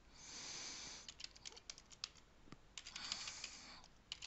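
Computer keyboard keys clicking in a short run of taps, between two soft rushes of noise, one at the start and one about three seconds in.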